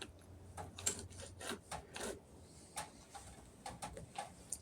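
Faint, irregular light clicks and taps of small metal parts being handled, as a thrust bearing is fitted onto a wheel shaft.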